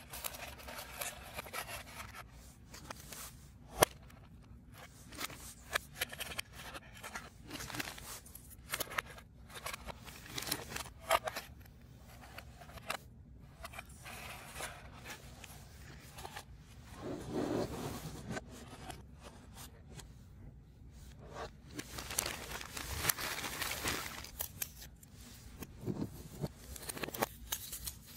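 3D puzzle pieces being handled and fitted together: irregular small clicks and scrapes, with a longer rustling scrape about two-thirds of the way in and another near the end.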